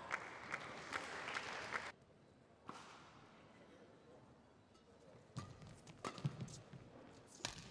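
Badminton rally: a shuttlecock struck sharply by rackets several times, the loudest hit near the end, with players' footsteps on the court. Before that, a stretch of hall noise cuts off abruptly about two seconds in.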